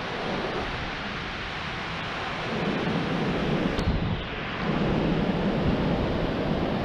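Surf breaking and washing over a pebble beach, with wind rumbling on the microphone. The noise swells about two and a half seconds in and again near five seconds.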